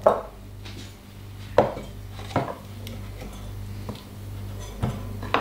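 A metal hand-held lime squeezer and lime halves being picked up and set down on a wooden cutting board beside a steel cocktail shaker: about five separate short knocks and clinks.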